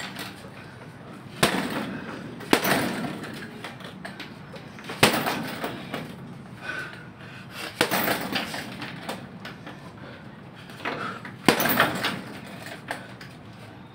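Boxing gloves punching a hanging Pro Sport 'Pure Fighter' heavy bag: about five hard punches at uneven gaps, with lighter hits between.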